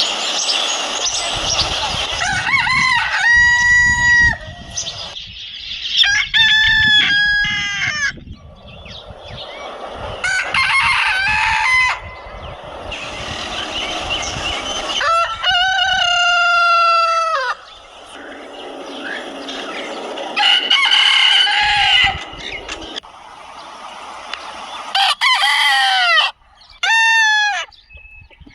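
Desi roosters crowing one after another, about seven crows of a second or two each, with hens clucking and farmyard noise between them.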